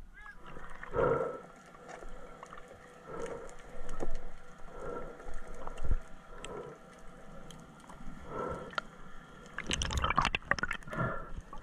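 Muffled underwater water sounds around a diving spearfisher: soft swishing swells about every couple of seconds, then a louder patch of bubbling and gurgling near the end.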